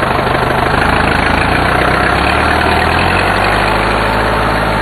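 A vehicle engine running steadily, loud and unbroken; its low hum shifts in pitch a little past halfway.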